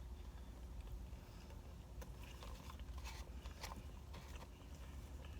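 Faint chewing and mouth sounds of a person eating noodles and cabbage, with a few small clicks from about two seconds in.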